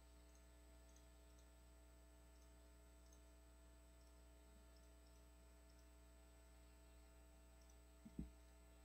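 Near silence: steady low electrical hum of the video-call audio line, with faint scattered ticks and a short soft low thump near the end.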